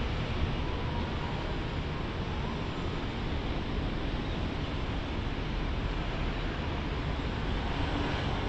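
CPTM Série 8000 electric commuter train running away into the distance after departing a station: a steady, even low rumble and hiss of wheels on rail.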